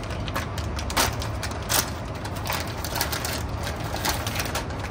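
Scattered clicks and rustles of strawberry mochi being handled, roughly one or two a second, over a steady low background rumble.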